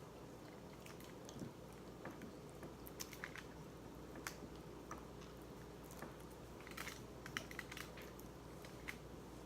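Close-miked eating: a person chewing, with scattered soft mouth clicks and small crackles.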